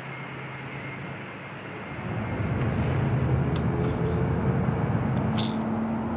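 A motor vehicle's engine running on the street, growing louder about two seconds in, with a steady hum joining near the end and a few faint clicks.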